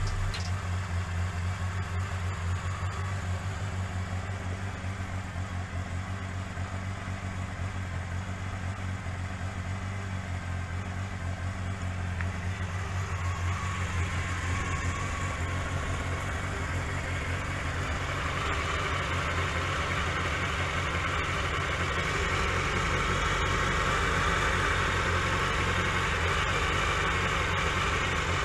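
Honda CBR750F's inline-four engine idling steadily, getting louder through the second half.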